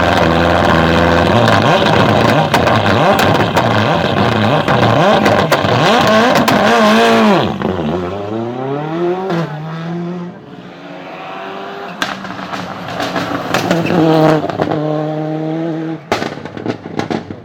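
Turbocharged car engine with anti-lag revving hard, its pitch swinging up and down, then falling away to lower revs a little before halfway. Sharp exhaust bangs crack out once in the second half and in a quick cluster near the end.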